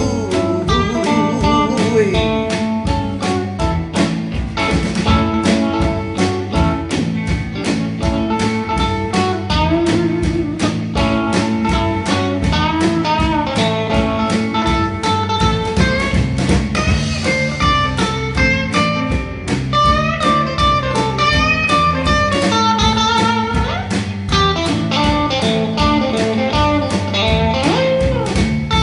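Live blues band playing an instrumental break over a steady shuffle beat, electric guitar to the fore with bass and drums underneath, some notes bent.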